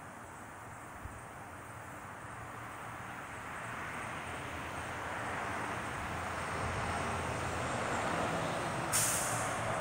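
Rushing noise of a passing vehicle, growing slowly and steadily louder as it approaches, with a short sharp hiss near the end.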